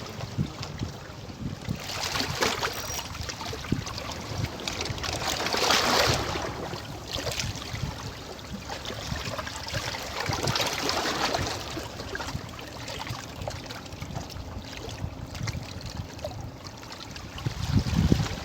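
Sea water washing and trickling among shore rocks, swelling up louder about two, six and eleven seconds in, with a low rumble underneath.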